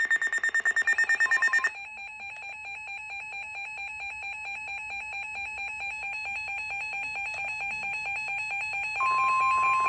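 Eton weather radio's emergency alert going off: rapid high-pitched beeping for under two seconds, then a fast warbling two-tone alarm. Near the end a steady single tone takes over, the NOAA Weather Radio 1050 Hz warning alarm tone that announces a warning such as this severe thunderstorm warning.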